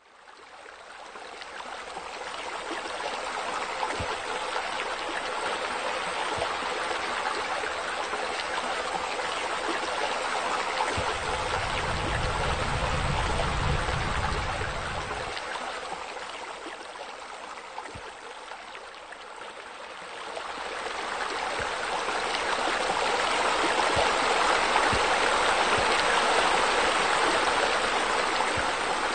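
Steady rush of water splashing from pool wall spouts into the water. It fades in at the start, eases off about two-thirds of the way through, then swells again. A low rumble joins it for a few seconds near the middle.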